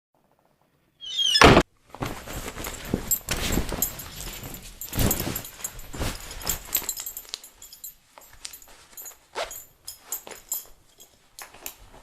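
A short loud squeak and thud, like a door, then a stream of urine splashing into a toilet, uneven and spiky, growing weaker after about eight seconds.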